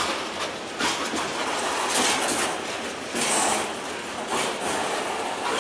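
Freight train of hopper cars rolling past close by: a constant rush of wheel and car noise, broken by irregular rattling knocks several times a second.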